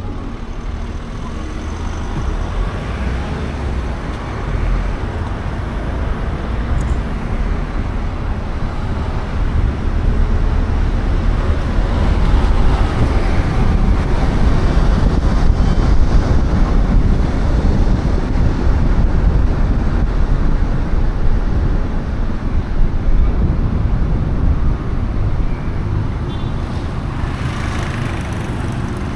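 Car driving on city roads: steady road and tyre noise, mostly low-pitched, getting louder from about ten seconds in.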